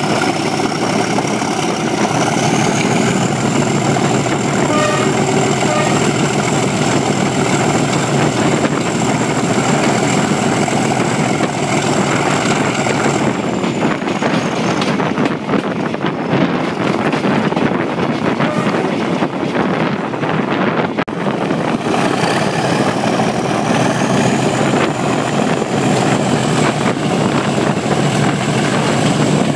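Class 37 diesel locomotives working under power, their English Electric engines running with a high turbocharger whistle. The whistle climbs in pitch a couple of seconds in, dies away around the middle as power eases, then climbs again about two-thirds of the way through, over steady train running noise.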